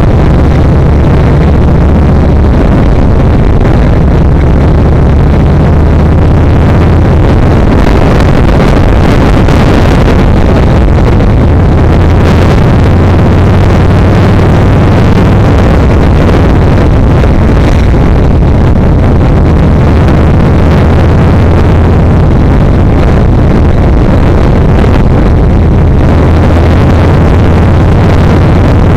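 Yamaha XVS1300's V-twin engine running steadily while the motorcycle is ridden, its low engine note mixed with a constant rushing noise.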